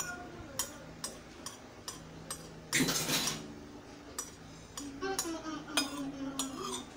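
A metal spoon and fork clinking repeatedly against a ceramic bowl while eating noodles, about a dozen sharp clinks. About three seconds in there is a louder, short slurp.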